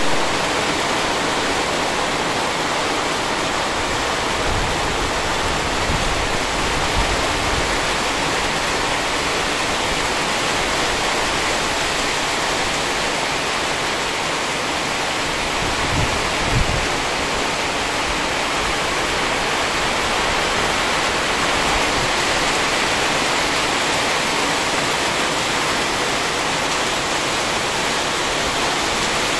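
Heavy rain falling, a steady dense hiss, with a couple of brief low bumps just past halfway.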